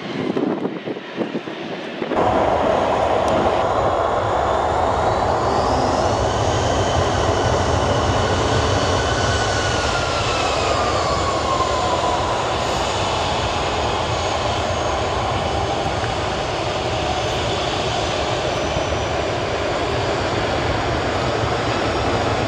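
Turbofan engines of a twin-engine Airbus A320-family jet running on the runway: a steady jet roar with a low rumble and whining tones that glide up and down in pitch. The sound steps up sharply about two seconds in.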